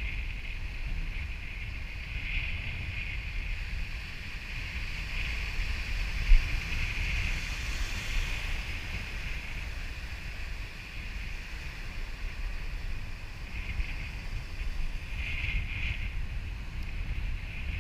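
Wind buffeting a head-mounted GoPro's microphone over surf washing in the shallows, with one wave swelling and breaking about halfway through.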